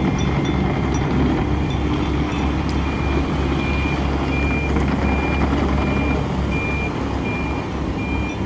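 Yanmar SV100 excavator's diesel engine running steadily, with its travel alarm beeping about one and a half times a second from about three seconds in, the sign that the machine is tracking.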